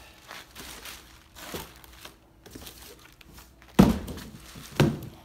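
Plastic wrapping crinkling as a WEN 56203i inverter generator, still bagged, is lifted out of its cardboard box, then two heavy thumps about a second apart near the end as it is set down on concrete.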